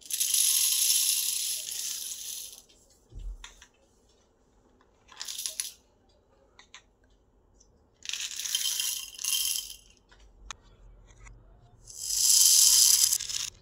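Small plastic buttons and pearl beads clattering against a glass dish as they pour, in four bursts, the first and last the longest and loudest, with single clicks between. A dull thud about three seconds in.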